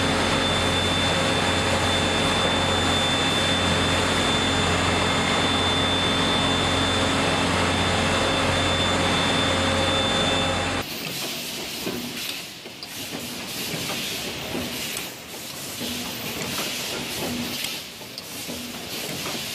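Hot-coiling spring machine and the plant around it running with steady, loud mechanical noise, a low hum and a thin high whine. About eleven seconds in this gives way to a quieter wire-forming machine clattering with rapid small metal knocks.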